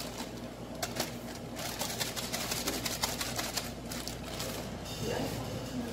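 Clear plastic bag crinkling and rustling as it is squeezed and kneaded by hand, in irregular crackles, over a steady low hum.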